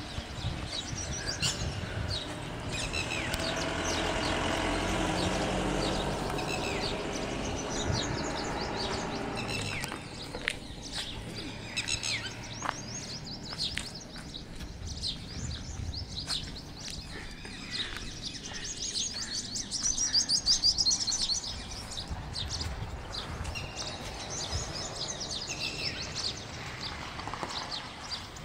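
Small birds chirping and calling outdoors in short, high notes, with a dense burst of chirping about two-thirds of the way through. A low background rumble runs under it for several seconds in the first third.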